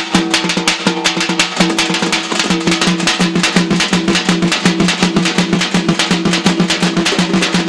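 Fast, steady drumming in an even rhythm of several strokes a second, with a held, droning note sounding underneath.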